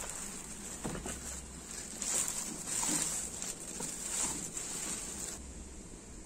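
Sharp EC-8305 low-wattage vacuum cleaner running with a steady high-pitched hiss and a few crackles. The hiss cuts off abruptly about five seconds in.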